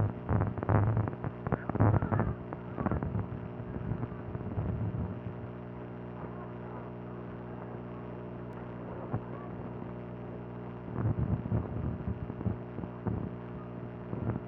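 A steady low mechanical hum, with irregular muffled knocks and rumbles over it for the first five seconds and again from about eleven seconds in.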